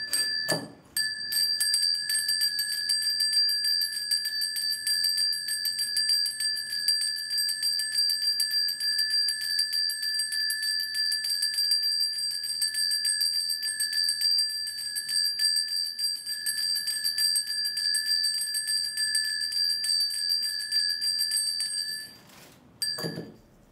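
A Korean shaman's cluster of brass ritual bells (mu-bangul) shaken rapidly and continuously, giving a bright, steady jangling ring, as the spirit divination begins. The shaking stops about 22 seconds in, followed by one brief shake.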